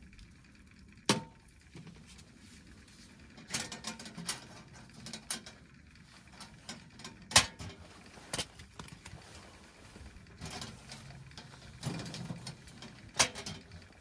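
Knocks and clanks of a small wood-burning tent stove being tended: the metal stove door and latch worked and split firewood handled and put in. Scattered sharp knocks, the loudest about halfway through, with brief ringing clanks about a second in and near the end.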